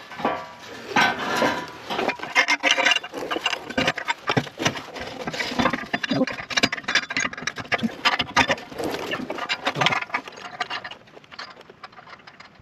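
Steel 2¼-inch exhaust pipe clanking and scraping against the underside of a pickup as it is worked into place by hand: a busy, irregular run of knocks and rattles that thins out near the end.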